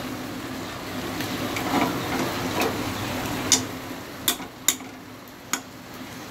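A metal spoon stirring thick chicken-and-onion gravy in a kadai, the spoon clicking sharply against the pan about six times, mostly in the second half, over a faint sizzle of the simmering gravy.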